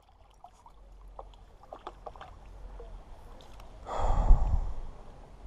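Quiet river water at a rocky bank with scattered faint clicks, then a short loud rumbling burst about four seconds in.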